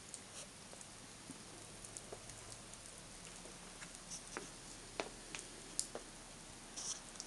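Wet falling snow and meltwater drips pattering faintly and irregularly over a steady hiss, with scattered light ticks, the sharpest a few seconds from the end.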